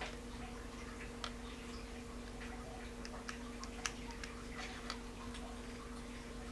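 Faint, irregular light clicks and ticks of small metal spinning-reel parts and tools being handled, the sharpest about four seconds in, over a steady low hum.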